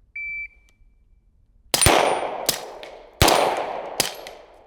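A shot timer's short beep, then after about a second and a half a string of handgun shots roughly every three-quarters of a second, each followed by the ring of a struck steel target.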